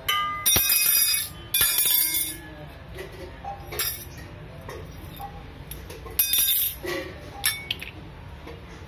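Stainless-steel kitchen utensils (ladles, spoons, a tumbler) clattering and clinking against each other and a stone floor as a toddler handles and drops them, each knock ringing briefly. The loudest clusters come right at the start, about a second and a half in, and around six to seven seconds in, with smaller clinks between.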